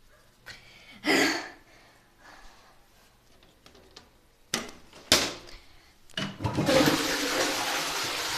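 A few knocks and bumps of handling, then from about six seconds in a steady rush of running water in a small bathroom.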